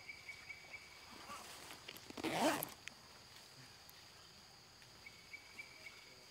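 Forest insects trilling steadily, with a pulsing high chirp at the start and again near the end. About two seconds in comes one short, loud cry lasting about half a second.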